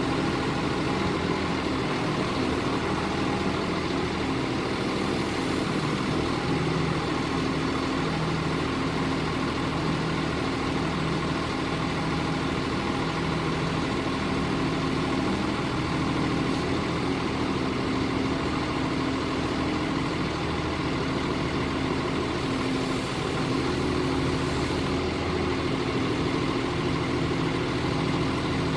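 Cummins ISB diesel engine of a 1999 Gradall GW-394-G3WD wheeled excavator idling steadily.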